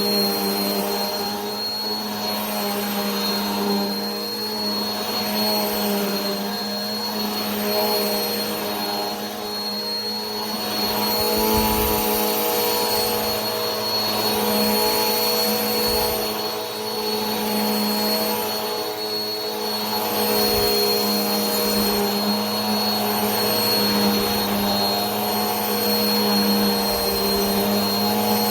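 Vacuum cleaner motor running continuously: a steady whirring hum with a thin high whine over a rush of air, swelling and easing slightly every couple of seconds.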